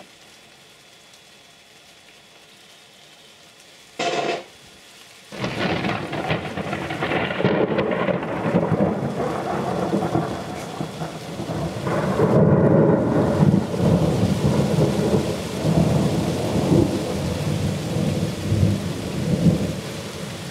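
Thunder: a short sharp crack about four seconds in, then a loud rolling rumble that sets in a second later and goes on, swelling and fading.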